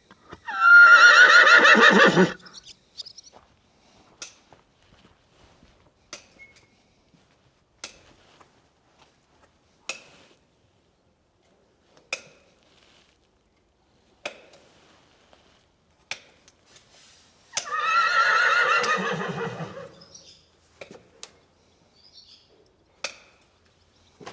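A horse whinnies twice, each a loud call of about two seconds that quavers and falls in pitch: once at the start and again about 18 seconds in. Between the calls come sharp single knocks roughly every two seconds.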